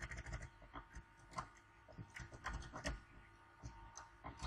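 Faint, scattered key clicks from a computer keyboard, a handful of irregular taps spread over the few seconds.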